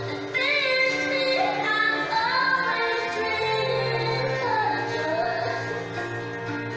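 Dance music playing: a woman singing a melody with sliding, bending notes, entering about a third of a second in, over steady held low tones.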